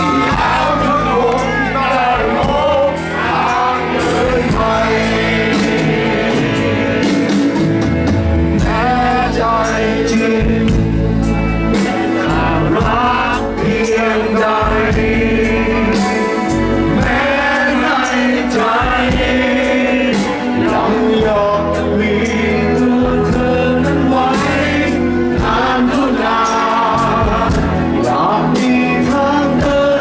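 Live rock band playing loud through a PA system, with a male lead singer over electric bass, guitars and a steady drum beat.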